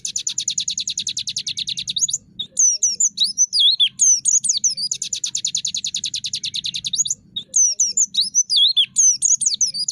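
White-eye (pleci) singing a repeating phrase: a run of quick swooping whistles, then a long, fast, even rattling trill, the 'tractor' sound. The phrase comes round about every five seconds, three times.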